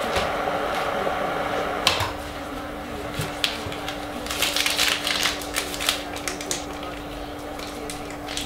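Clicks and light rattling as an electric kettle is handled on a kitchen counter, thickest about halfway through, over a steady hum.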